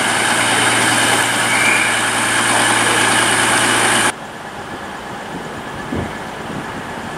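CrossCountry Voyager diesel multiple unit's underfloor engines running loudly with a steady low hum. The sound cuts off suddenly about four seconds in, leaving a much quieter background with a single thump about six seconds in.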